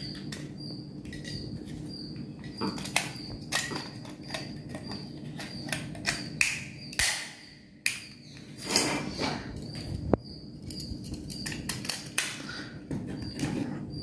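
Plastic modular switches being snapped into a plastic switch plate frame by hand: irregular small clicks, taps and rattles of plastic on plastic, with a few louder snaps and short rustles of handling.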